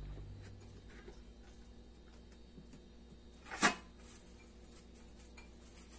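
A single short clatter of a spoon in a glass bowl of fried namkeen mix, about three and a half seconds in, with a brief ringing tail. Otherwise near quiet, with faint small ticks, after the last of some guitar music dies away at the start.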